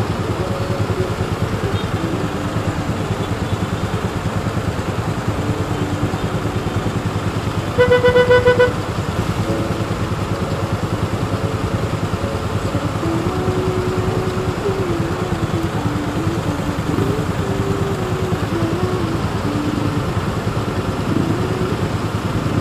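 Motorcycle engine idling steadily in stopped traffic. A vehicle horn honks once, briefly, about eight seconds in, the loudest sound.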